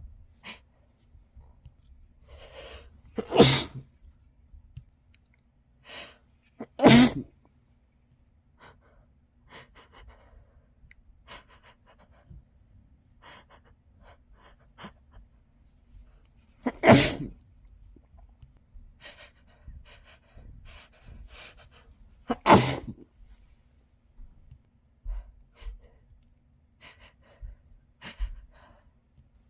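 A person sneezing into a tissue, muffled: four loud sneezes, spaced several seconds apart, with fainter short sounds between them.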